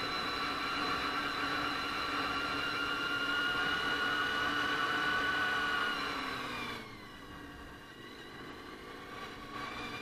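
Honda VFR400 NC30's V4 engine running as the bike rides along, its pitch climbing slowly for about six seconds. The revs then drop and the engine note falls away, running quieter near the end.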